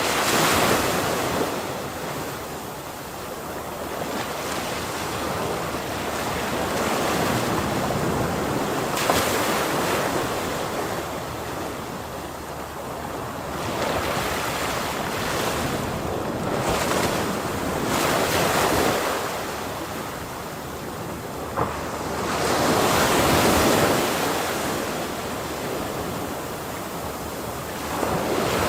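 Ocean surf breaking and washing on a shore, the noise swelling into a surge every few seconds and ebbing between them.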